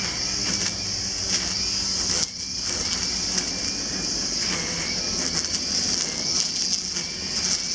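Engine brushcutter running steadily while cutting grass, with a brief dip a little over two seconds in, under a steady high-pitched hiss.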